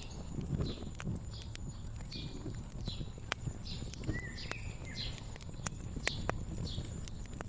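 Wood fire crackling with many sharp pops over a low rumble, with a songbird singing a short phrase of stepped notes about four seconds in.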